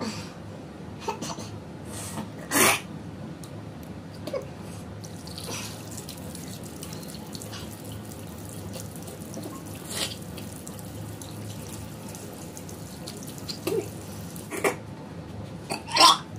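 A woman gagging and retching in short, sudden bursts a few seconds apart, the loudest pair near the end as she pushes her fingers into her mouth to make herself throw up.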